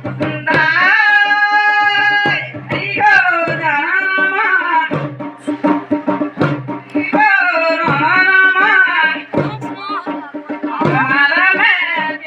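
Pandav Leela folk music: a voice sings long, wavering held phrases in four stretches over continuous drumming.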